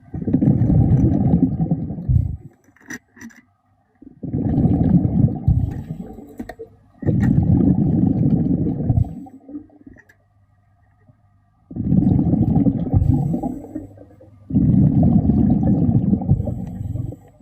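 Underwater, a diver breathing out through a regulator, each exhalation a low rumbling gush of bubbles lasting two to three seconds. It comes five times, with quieter pauses between for the in-breaths.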